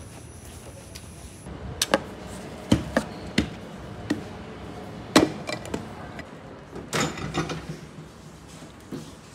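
A string of sharp clicks and knocks from handling a glass meal-prep container with a clip-on plastic lid and working a microwave oven's door. The knocks begin about two seconds in and bunch together near the end.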